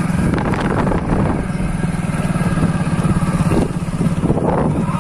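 Motorcycle engine running steadily as the bike rides along at a moderate pace, with a fast, even pulse in its hum.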